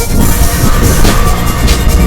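Loud electronic background music with a heavy bass and a steady beat.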